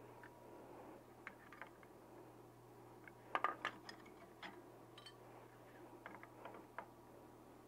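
Light metallic clicks and clinks of hand tools and hardware as a motorcycle foot peg is fitted to its mount. The loudest cluster comes about three and a half seconds in, with a few scattered clicks after it.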